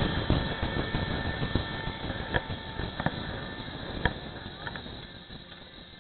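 Riding noise from a Suzuki Boulevard motorcycle on the move: wind rush and engine running, growing gradually quieter, with a few sharp clicks between about two and four seconds in.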